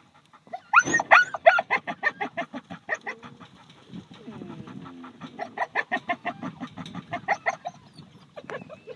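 A fast run of short, pitched animal calls, about four or five a second, starting about a second in. They thin out for a moment midway and then pick up again until near the end.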